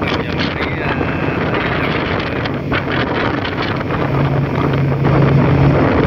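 Wind buffeting the microphone aboard a high-speed passenger ferry under way, over the steady drone of its engines; a low hum stands out for a couple of seconds near the end.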